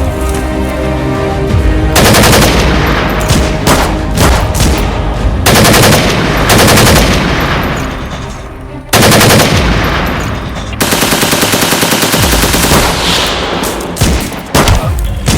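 Long bursts of rapid automatic gunfire, several bursts a few seconds each with short pauses between, over background music.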